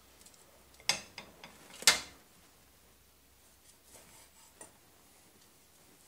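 A few sharp clicks and knocks of metal tongs and a knife handled on a wooden chopping board, the loudest about two seconds in. Then faint ticks as a knife slices through a cooked ram cutlet on the board.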